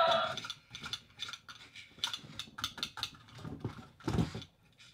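Zoomer Indominus Rex robotic toy dinosaur: its electronic roar cuts off just at the start, then its motor and plastic gears click irregularly as it moves its head and jaw. A louder knock comes about four seconds in.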